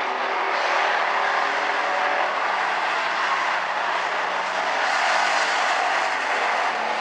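Hobby stock race cars' engines running at racing speed as the field circles the oval, a steady drone of several cars.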